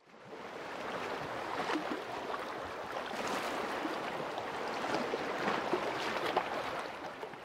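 Gentle sea waves washing and splashing over shallows, a steady wash that fades in at the start and dies away near the end.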